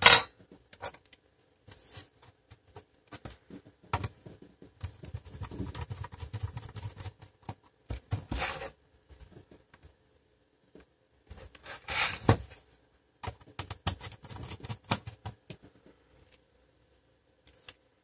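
Plastic case of an HP Pavilion 15 laptop being handled and tipped over: scattered clicks and taps, with two longer scrapes about eight and twelve seconds in.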